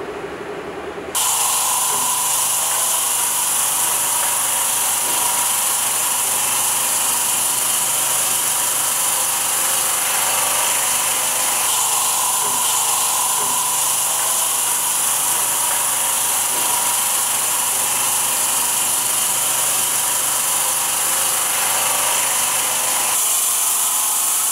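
Steady high whine and hiss of the spinning blades of a multi-blade automatic stone-cutting machine sawing red brick under water spray. It starts abruptly about a second in and holds steady, shifting slightly in tone near the end.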